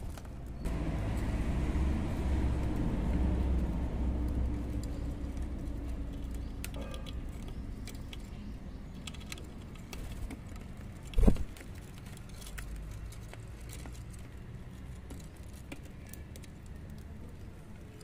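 A motor vehicle passing: a low rumble that swells over the first couple of seconds and slowly fades. Small clicks and taps run throughout, with a single loud thump about eleven seconds in.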